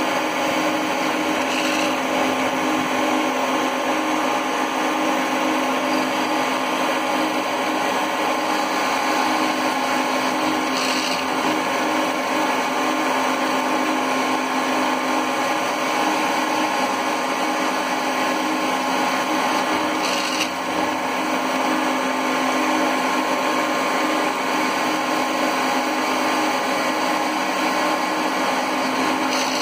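Paulimot PM 280 VLP metal lathe, converted to CNC, running steadily: the spindle turns with a hum of several steady tones while a carbide tool cuts a metal bar. A short hiss rises above it about four times, roughly every nine seconds.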